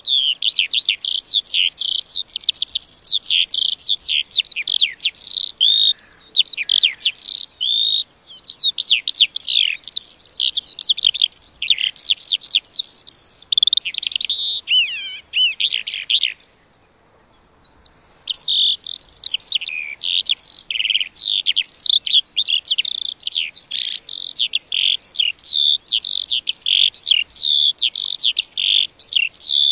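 A lark singing a long, fast, unbroken song of rapid varied chirps and trills. It stops for about a second and a half just past halfway, then carries on.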